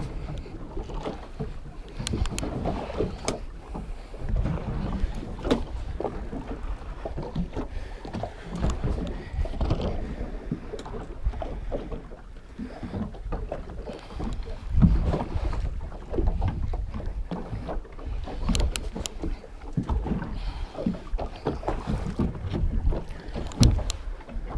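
Wind gusting on the microphone and sea water slapping against a small boat's hull, with scattered knocks and clicks throughout.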